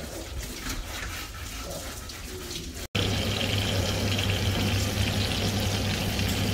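Seasoned chicken breasts sizzling in hot oil in a frying pan, a steady hissing that starts suddenly about three seconds in, over a steady low hum. Before that, a quieter stretch of faint noise.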